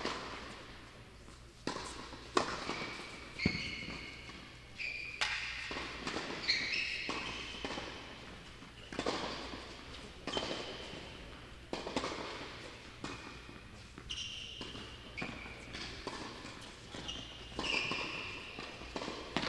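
Tennis rally: irregular racket strikes and ball bounces about once a second, each echoing briefly, with short high squeaks typical of tennis shoes on a hard court.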